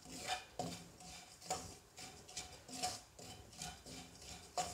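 Wooden spatula stirring and scraping grated coconut around a black pan as it dry-roasts, in faint, short, irregular strokes.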